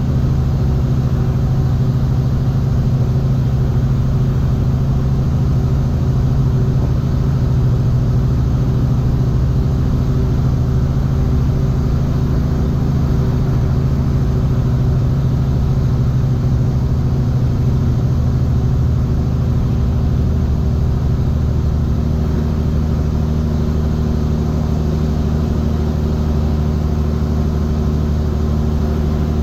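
Diesel engine of a semi-truck pulling a loaded refrigerated trailer, running steadily; its pitch shifts lower about two-thirds of the way through.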